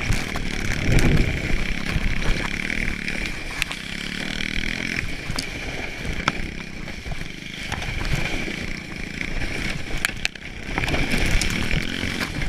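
Small pit bike engine buzzing steadily as it tows a plastic sled over snow, with the sled's hiss and rumble on the snow underneath and a few sharp knocks.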